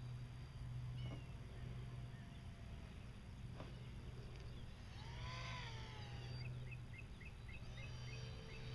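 Birds chirping outdoors: a few arched calls about five seconds in, then a quick run of short repeated chirps, over a low hum that swells and fades about once a second.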